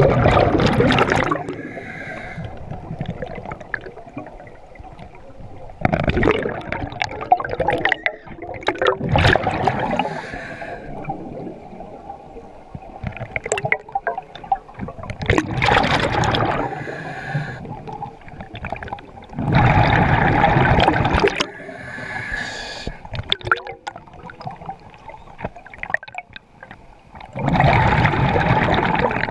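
Scuba diver breathing through an open-circuit regulator, heard underwater: a loud rush of exhaled bubbles every few seconds, with a quieter hissing inhale between them.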